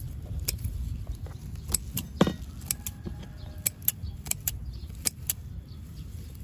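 Irregular sharp snips and clicks, a few a second, of chive stems being cut during harvest, over a steady low rumble, with one louder knock a little over two seconds in.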